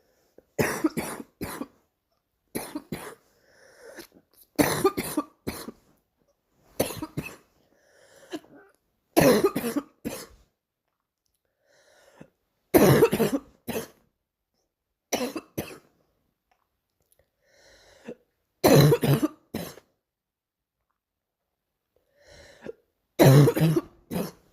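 A girl coughing over and over, in short bouts of one to three coughs every two to four seconds.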